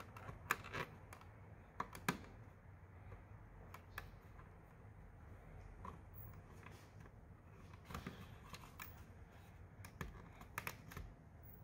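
Scattered faint clicks and taps of fingers handling the plastic housing and tab of a ceiling-mounted fire suppression unit, over a low steady room hum.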